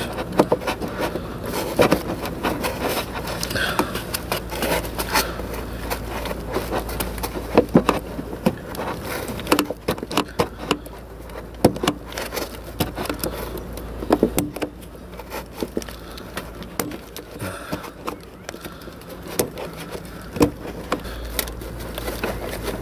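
Irregular clicks, knocks and scrapes of a gloved hand working at a heater core hose coupler, rocking it to work it loose, over a low steady hum.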